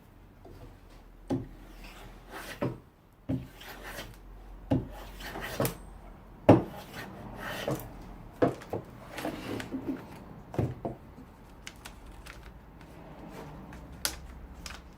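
Hardwood strips being fitted into a routed mitre slot: a dozen or so irregular wooden knocks and scraping, rubbing sounds, over a low steady hum.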